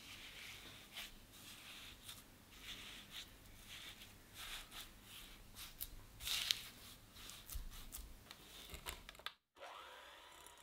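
Silicone spatula mashing sugar into softened butter in a glass bowl: irregular gritty scraping and rubbing strokes with short clicks of the blade against the glass. Near the end, after a brief break, an electric hand mixer starts up with a rising whine.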